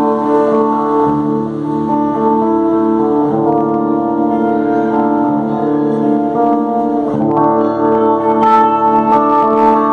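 Strinberg electric guitar playing slow, sustained chords that change about every three to four seconds, with sharper picked notes coming in near the end.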